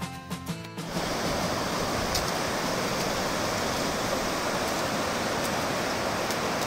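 Plucked-string background music stops about a second in. It gives way to a steady, even rush of fast-moving water.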